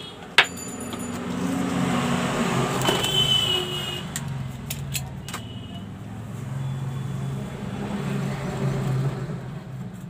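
A motor vehicle's engine running as it goes by, its sound swelling and fading twice, with a sharp click about half a second in.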